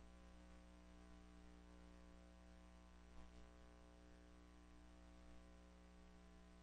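Near silence: a faint steady mains hum and hiss from a silent film's tape transfer, with one small click about three seconds in.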